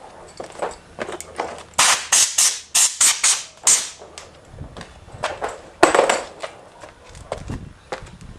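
Hands-on work refitting a car's plastic front bumper: scattered clicks and knocks. About two seconds in comes a quick run of about seven short, loud rasping bursts, and another loud burst follows near six seconds.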